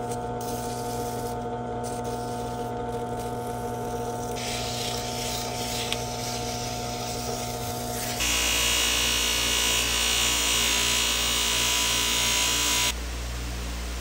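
A small electric power tool running steadily with a constant motor hum. About eight seconds in, the sound switches abruptly to a louder, hissier running, then near the end drops back to a quieter hum.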